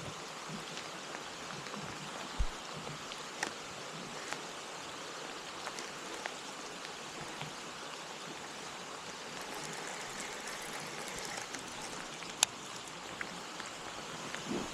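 Steady hiss of light rain falling on the lake and the boat, with scattered sharp ticks, the sharpest about twelve seconds in.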